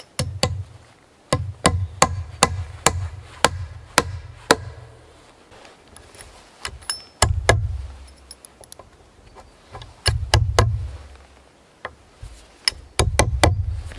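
Hand tool striking wood in quick runs of sharp blows, about two to three a second, with short pauses between the runs; each run carries a deep, resonant thud under the cracks.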